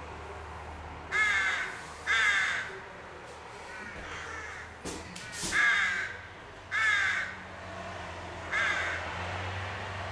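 Rooks cawing: five loud caws spaced a second or two apart, with fainter caws between them and two sharp clicks near the middle. A low steady rumble runs underneath.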